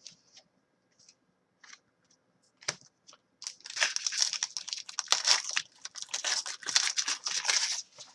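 Hockey card pack wrapper being torn open and crinkled, a dense crackling that starts about three and a half seconds in and lasts about four seconds. It follows a few light clicks.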